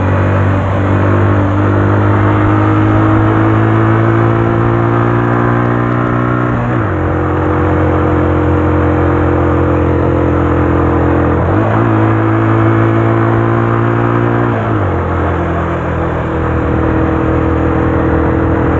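Italika RT180 motorcycle's single-cylinder engine running steadily while riding, over road and wind noise. The engine note drops about seven seconds in, climbs back near twelve seconds, and drops again near fifteen seconds as the throttle or gear changes.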